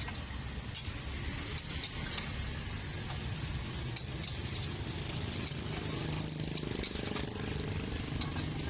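A metal spatula clinks and scrapes against a wok as greens are stir-fried, giving sharp clicks every second or so, over a steady low rumble.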